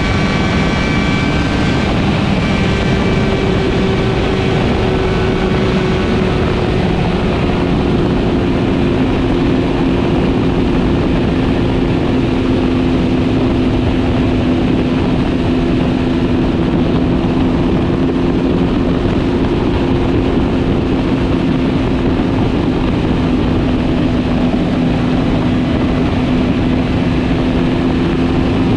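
Motorcycle engine running at a steady note while cruising at highway speed, over a constant rush of wind and road noise; the pitch shifts slightly in the first few seconds, then holds.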